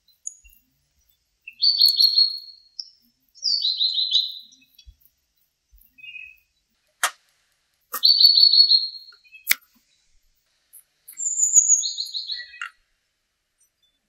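Small songbird singing: four short trilled phrases of rapid repeated notes, each about a second long, with pauses between them. Two sharp clicks fall between the phrases.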